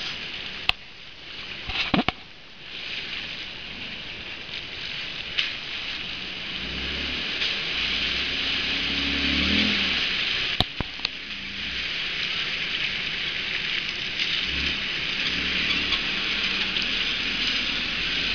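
A lifted 1988 Nissan Pathfinder's engine running at low speed as the truck crawls over rutted dirt, heard loudest in the middle of the stretch. Under it is a steady high hiss, with a few sharp clicks near the start and about ten seconds in.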